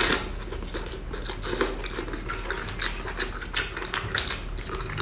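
Close-up eating of shellfish: chewing and biting, with many sharp, irregular clicks and crackles of shell being handled and bitten.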